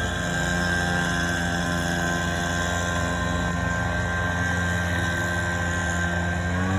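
Gas-powered lawn equipment engine running steadily with a high whine over it, its pitch rising near the end as it is throttled up.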